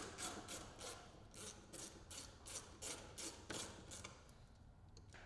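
Hand ratchet loosening a screw: a run of short rasping ratchet strokes, about three a second, that stops about four seconds in.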